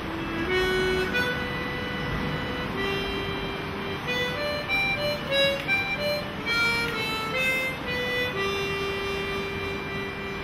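Suzuki harmonica played solo, a slow melody of single reedy notes that quickens in the middle and settles into one long held note about eight seconds in, over a steady background hiss.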